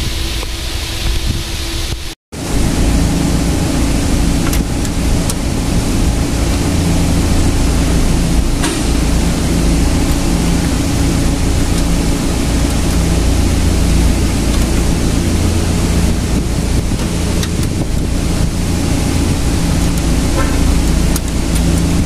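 Steady loud rushing noise with a low hum underneath, broken once by a brief drop-out about two seconds in.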